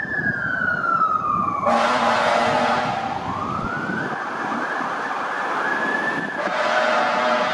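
Emergency vehicle siren wailing, slowly rising and falling in pitch. Two blaring horn blasts sound over it, one about two seconds in and another starting near the end.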